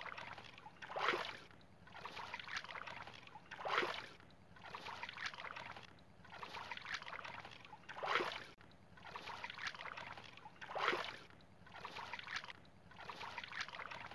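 Muddy pond water sloshing as hands work and scoop through it: repeated soft swishes, with four sharper splashes among them.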